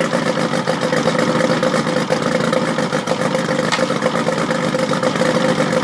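Mercury Thunderbolt 50 two-stroke outboard motor idling steadily in neutral, running on all cylinders.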